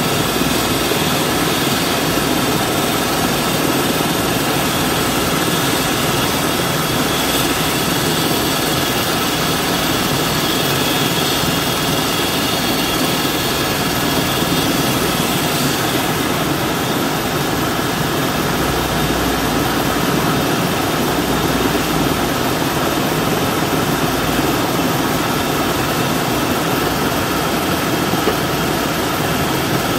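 Airbus ACH135 helicopter's turbine engines and rotor running steadily. A constant whine of several steady tones sits over a loud, even rush of noise, and the high hiss eases slightly about halfway through.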